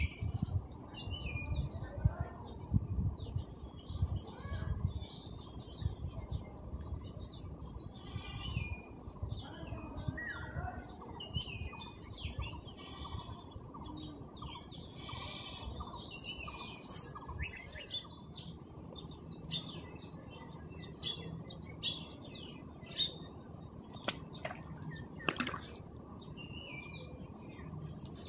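Small birds chirping and calling over and over, with a few low thumps in the first ten seconds and a couple of sharp clicks near the end.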